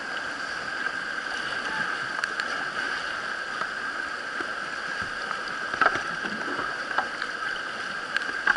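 Whitewater rapids rushing past a kayak in a steady roar of moving water, with a few sharp splashes in the second half.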